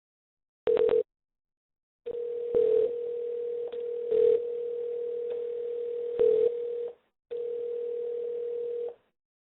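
Telephone dial tone on the line after the call centre has hung up: one steady tone, first a short blip, then a long stretch with a brief break, growing louder for a moment three times.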